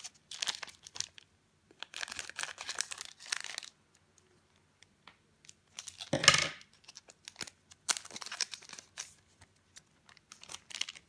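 Foil Pokémon booster pack being snipped open with small scissors and its wrapper crinkled and handled, in several bursts of rustling, the loudest about six seconds in.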